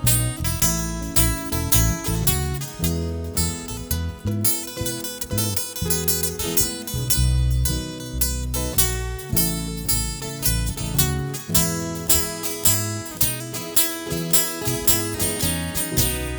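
Instrumental break of an acoustic folk song: strummed and picked acoustic guitar over a bass line, with no singing.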